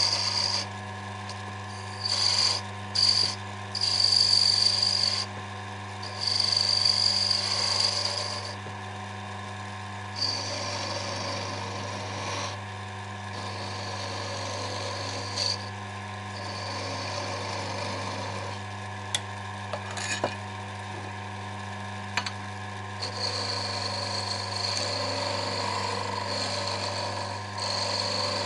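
Small lathe running with a steady hum while a hand-held cutting tool turns a small wooden ball-ended spike, the cut coming and going in hissing stretches of a second or more. There are a few sharp clicks about two thirds of the way through.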